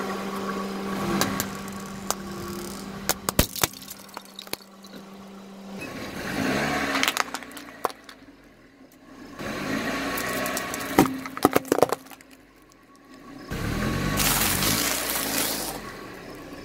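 A car's tyre rolling slowly over small objects and crushing them, with sharp cracks and snaps of breaking plastic several times and the crunch of crisp rice cakes. Under these the car's engine runs and revs lightly as it creeps forward.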